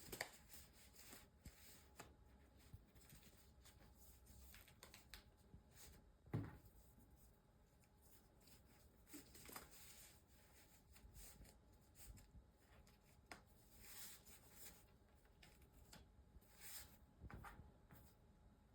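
Faint rustling and handling as pieces of a lens cover are fitted onto a camera lens, with scattered small clicks and one sharper knock about six seconds in.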